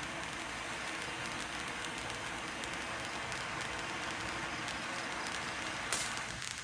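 Steady crackling hiss from a fireworks display, with a sharper crack about six seconds in.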